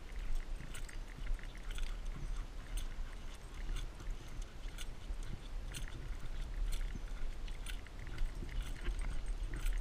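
Light, irregular taps and scuffs on asphalt, about once a second, from a dog's prosthetic front feet as she walks, over a low wind rumble on the microphone.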